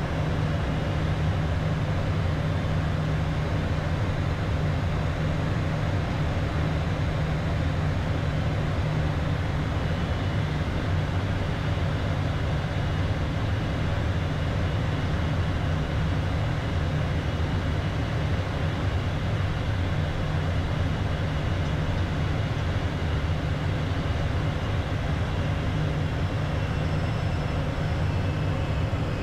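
Steady cockpit noise of a Beechcraft Premier 1A twin-turbofan business jet on final approach: engine and airflow sound, an even low drone that does not change.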